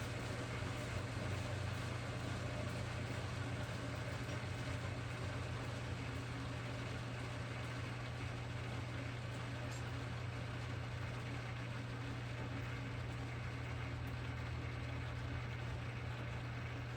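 CabKing 8 cabbing machine's motor running steadily, a constant low hum with a faint hiss over it.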